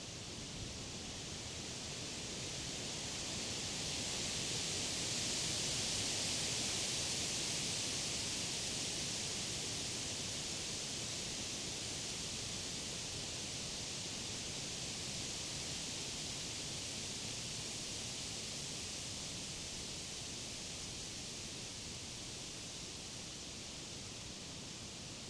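Wind blowing through the leaves of tall trees and grass, a steady leafy rustle that swells in a gust peaking about six seconds in, then slowly dies down.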